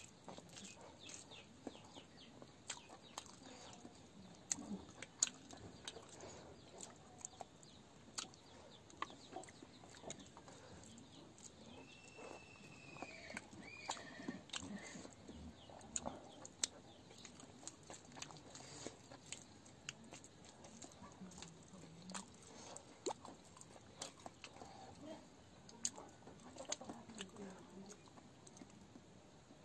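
Close-up eating sounds: chewing and lip smacks, and fingers scooping rice against a metal pan, heard as many short, scattered clicks. Chickens cluck faintly in the background, with one clear call about twelve seconds in.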